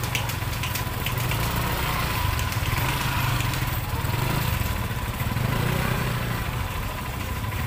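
Motorcycle engine running at low speed, a steady low rumble.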